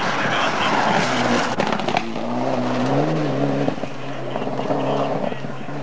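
Rally car passing close at speed: a dense rush of engine and tyre noise with a few sharp cracks, then its engine note carries on as it pulls away, rising in pitch about three seconds in.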